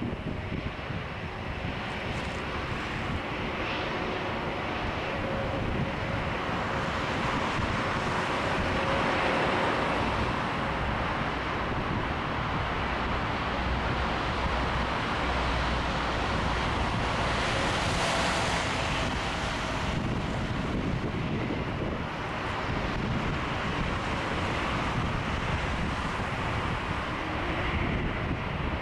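Jet airliner engines running at the airport: a steady rumble and hiss with a faint whine, swelling slightly about a third of the way in. Wind is buffeting the microphone.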